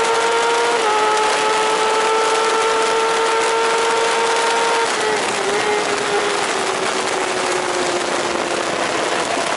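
A 1000 cc superbike's engine at full throttle at racing speed, with wind rushing hard over the onboard microphone. The engine note steps down at a gearchange about a second in. About halfway through, it fades and sinks slowly under the wind noise.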